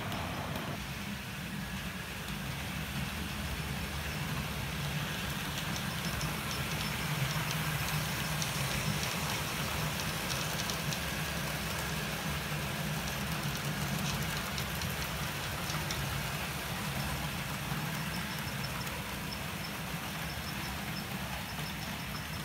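HO-scale model trains running on the layout: a steady low hum and rumble from the locomotive motors and wheels on the track, with light rapid clicking from wheels passing over rail joints and points.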